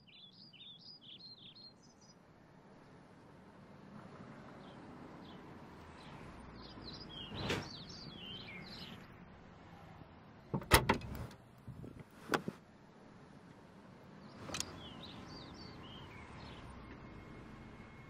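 Small birds chirping in short repeated phrases over steady outdoor background noise, with a handful of sharp knocks or clunks; the loudest comes about eleven seconds in.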